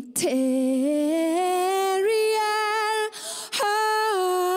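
A woman singing alone with no accompaniment, slow drawn-out notes climbing step by step in pitch, with a short break about three seconds in.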